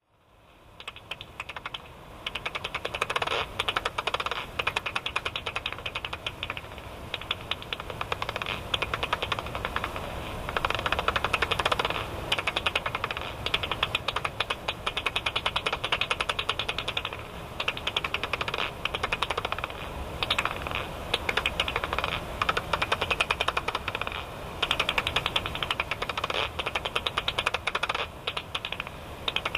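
Japanese house bat (Pipistrellus abramus) echolocation calls, made audible by a bat detector: fast trains of dry clicks that come in runs, some stretches packed much more densely than others.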